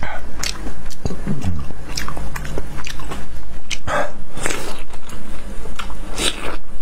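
Close mouth sounds of someone biting into and chewing raw marinated scallop, a dense run of irregular wet smacks and slurps.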